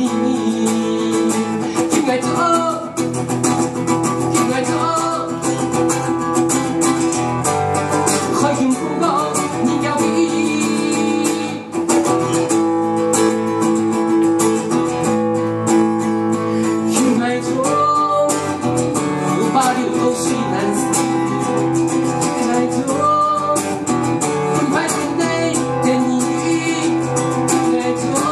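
Hakka folk song performed live: a man singing over strummed and plucked acoustic guitar, his voice sliding between notes.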